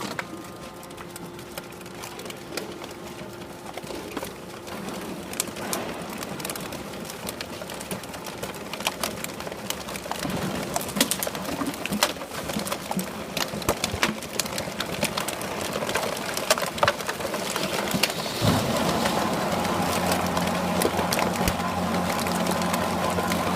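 Irregular crackling and popping clicks, typical of PET plastic bottles being crushed in a hydraulic horizontal baler. About three-quarters of the way through, a steady machine hum starts and stays, as the baler's hydraulic power unit runs.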